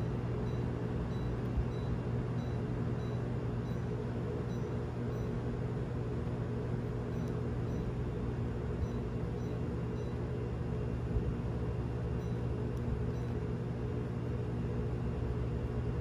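Steady hum of an Air-Con ductless mini-split indoor unit running, with faint short high beeps about once a second as the remote's sleep button is pressed again and again to bring up a fault code.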